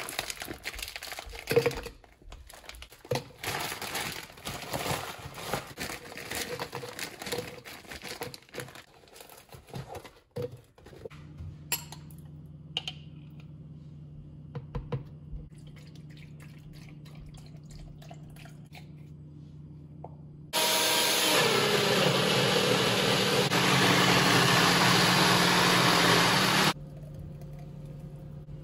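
Kitchen work sounds: irregular clattering and knocks, then a steady low hum. Near the end comes about six seconds of loud, steady rushing noise that cuts off suddenly.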